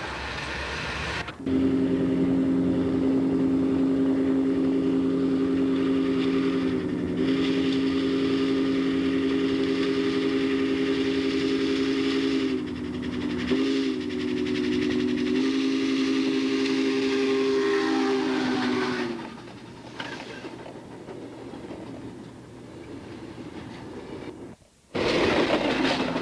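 Steam locomotive whistle sounding several notes at once, held for about seventeen seconds with a brief dip in pitch about midway. It then stops and gives way to the running noise of the train, which cuts out suddenly near the end and comes back louder as the cars pass close by.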